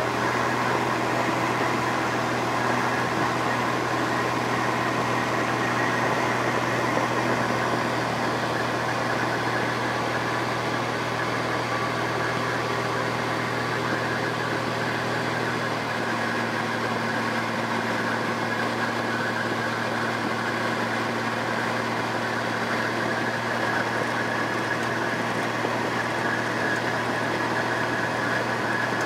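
Single-engine light aircraft's engine and propeller droning steadily, heard from inside the cabin, with a slight shift in its note about halfway through.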